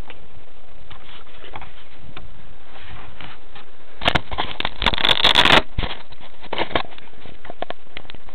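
Handling noise on a small key-fob camera's microphone: rubbing and scattered clicks over a steady hiss, with a louder rustling scrape about four seconds in that lasts about a second and a half.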